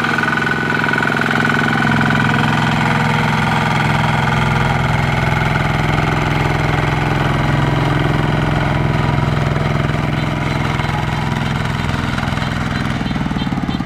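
Two-wheel walking tractor's single-cylinder diesel engine running steadily while pulling a loaded trailer, its note changing near the end.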